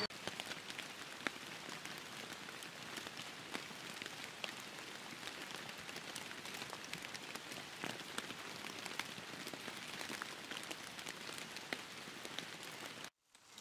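Light rain pattering steadily, with many scattered sharp ticks of single drops. It drops out to silence for a moment near the end.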